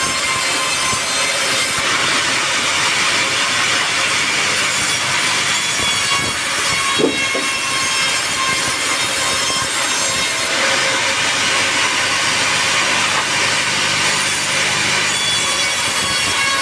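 Sawmill band saw cutting lengthwise through a teak log: a steady, continuous sawing noise, with a brief knock about seven seconds in.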